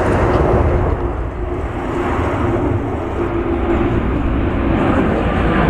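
An Airbus A350-1000's Rolls-Royce Trent XWB-97 turbofans at climb power as the airliner climbs overhead: a loud, steady jet roar with a faint hum running through it.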